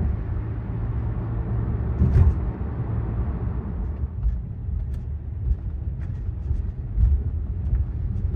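Steady low rumble of a vehicle in motion, with a knock about two seconds in and a few light clicks over it.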